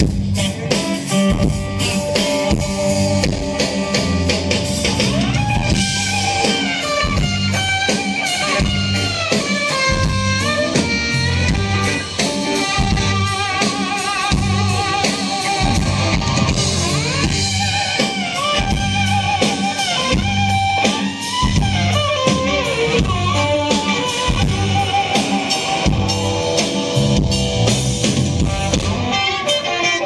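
Live blues-rock band playing: electric guitars over a steady drum-kit beat, with a lead guitar line bending its notes.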